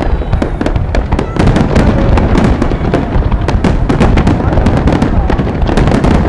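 Fireworks going off in a dense, continuous barrage: many rapid bangs and crackles a second over a constant low rumble.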